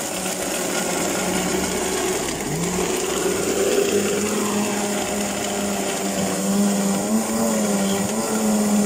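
Electric drink blender running steadily, its motor pitch wavering from about halfway through.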